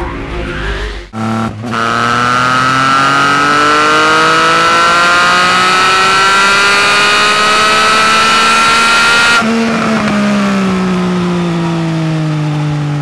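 Triumph Speed Triple RS 1050 cc inline three-cylinder engine pulling hard under acceleration, its pitch rising slowly and steadily for about eight seconds. Near the end the pitch steps down and keeps falling as the bike slows.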